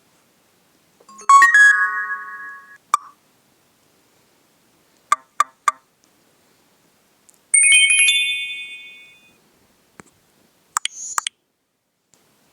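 Nokia C2-01 message alert tones played one after another with pauses between: a chime that rings and fades about a second in, three quick clicks around five seconds, another bright chime fading out near eight seconds, and two short blips near the end.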